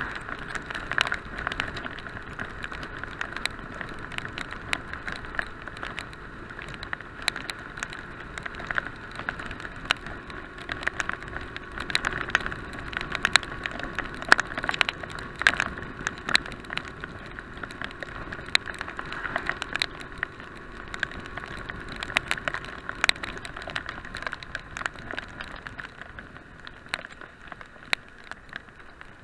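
Heavy rain striking the action camera's housing in many sharp, irregular taps, over the steady muffled rush of wind and riding noise from a BMW R850R motorcycle moving along a wet road.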